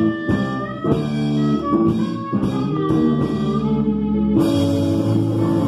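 Live rock band playing: electric guitar, bass guitar and drum kit. The sound grows fuller and brighter about four seconds in.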